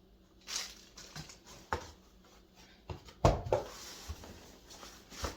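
Products being handled out of a package: a few sharp knocks and taps as items are picked up and set down, with brief rustles, the loudest knock about three seconds in.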